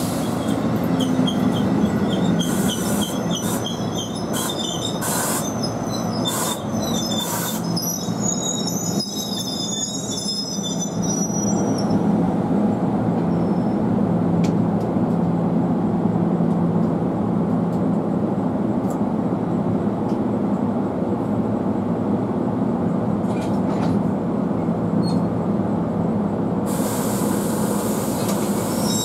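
Passenger train rolling along the track, its wheels squealing in short high-pitched bursts during roughly the first ten seconds, with a few sharp clicks, then a steady rumble of the cars going by.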